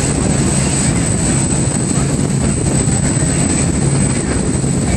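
Passenger ferry under way: a steady low engine drone and hum beneath a loud rushing noise, with a thin high whine held steady over it.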